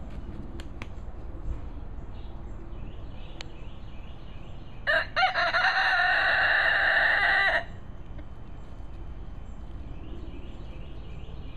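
Silkie rooster crowing once, about five seconds in: a few short broken notes, then a long held note of about two and a half seconds.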